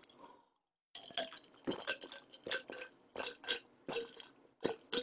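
A person gulping down a drink from a glass, a string of short swallowing and mouth sounds a few times a second, starting about a second in.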